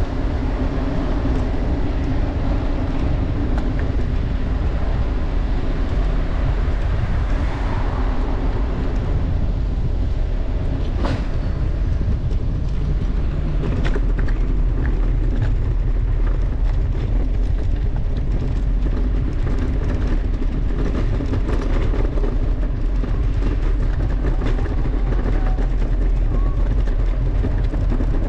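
Steady low rumble of wind and road noise on a camera being ridden through streets, with one sharp click about eleven seconds in.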